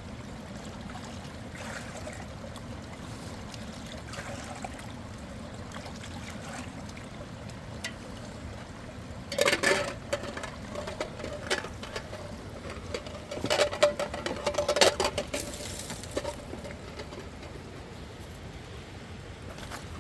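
Steady rush of flowing river water, with two louder, noisy bursts, a short one about nine seconds in and a longer one about thirteen seconds in.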